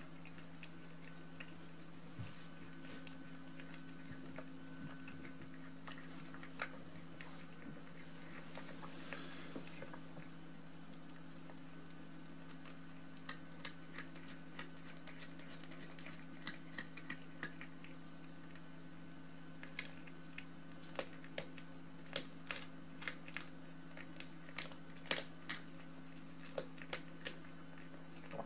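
A cat chewing a mouse: irregular sharp crunches and clicks, sparse at first and coming thick and fast in the last third, over a steady low hum.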